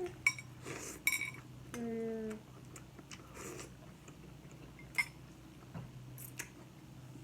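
Spoon and dishes clinking a few times during a meal, one clink ringing briefly about a second in, with a short hum from a voice around two seconds in.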